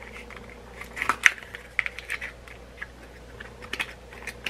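Long acrylic fingernails clicking and scratching against a small cardboard lip gloss box as it is handled and opened: a run of light, irregular clicks and taps, in clusters a second or so apart.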